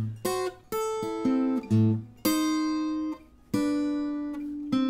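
Acoustic guitar playing a blues lick: a quick run of plucked single notes over low bass notes, then two notes left to ring out, about two seconds and three and a half seconds in.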